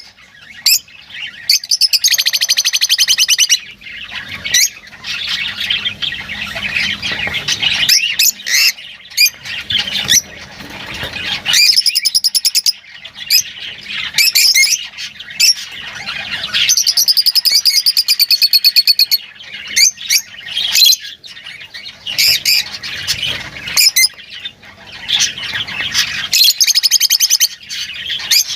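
Lovebirds chattering with sharp, high-pitched chirps and squawks, broken by several rapid buzzing trills that each last a second or two.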